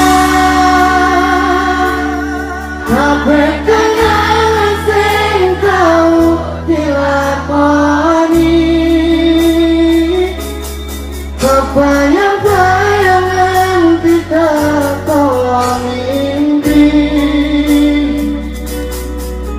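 A male singer singing a Javanese-language pop song live into a microphone, over band backing with a steady bass line.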